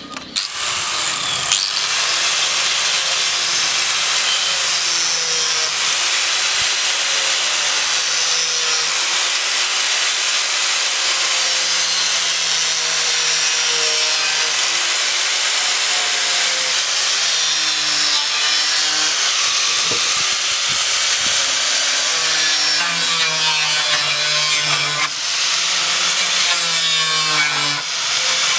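Electric angle grinder with a cutting disc running and cutting through a thick plastic water can: a loud, steady whir and rasp, the motor's pitch wavering up and down as the disc is loaded by the cut.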